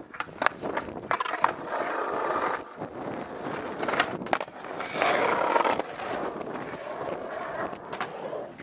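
Skateboard wheels rolling over asphalt in a steady rumble, with sharp clacks of the board being popped and landed in a flip trick about four seconds in.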